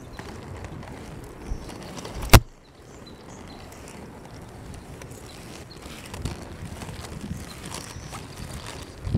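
Inline skate wheels rolling over rough asphalt, a steady gritty rumble, with one sharp, loud knock a little over two seconds in.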